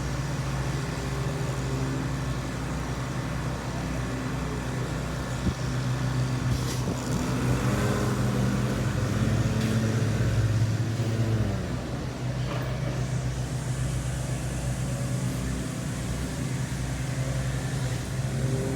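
Motor engine running steadily, its pitch rising and then falling around the middle.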